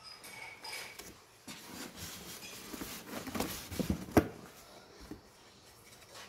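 Hands rummaging in a cardboard box and lifting out loose parts: rustling and rubbing of cardboard and packing, with a few knocks as parts touch and one sharp knock about four seconds in.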